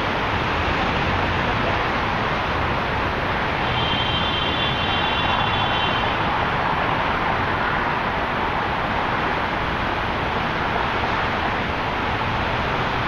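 Steady roar of city traffic, with a brief high-pitched whine about four seconds in.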